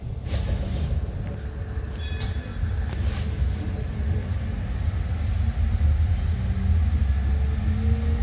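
Tram running along its track: a steady low rumble of wheels on rail with a few short clicks in the first three seconds, growing a little louder, and a faint motor whine that rises slightly near the end.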